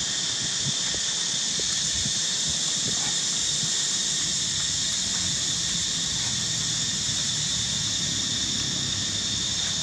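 Steady, high-pitched drone of an insect chorus, with a low hum underneath.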